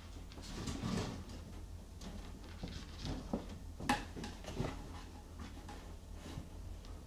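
Maine Coon kittens playing: scattered light scrapes and clicks of claws on a plastic pet carrier and the floor, with one sharper click about four seconds in.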